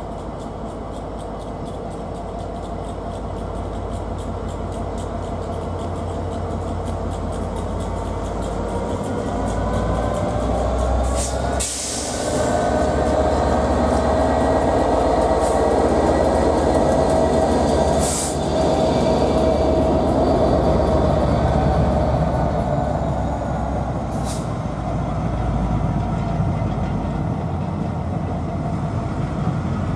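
A train passing on the line: the sound builds over the first ten seconds, holds loudest through the middle with tones that rise and fall as it goes by, then eases off. There are sharp clicks about eleven, eighteen and twenty-four seconds in.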